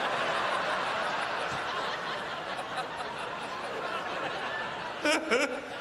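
Audience laughing at a stand-up punchline, a dense crowd laugh that is loudest at first and slowly dies away over about five seconds.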